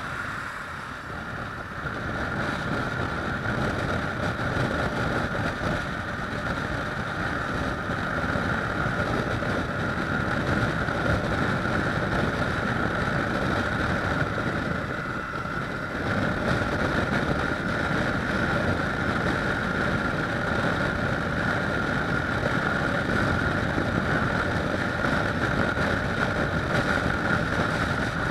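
Kawasaki ER-6f parallel-twin engine running as the motorcycle is ridden along the road, mixed with wind rushing over the camera. The sound eases briefly about a second in and again around fifteen seconds in.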